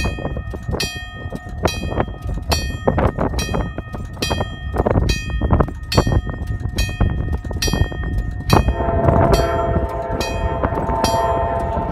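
Wig wag grade-crossing signal ringing its bell, about three strikes every two seconds, as the signal swings for an approaching train. About eight and a half seconds in, the approaching Amtrak P42DC locomotive's horn sounds and holds over the bell, with a low rumble beneath.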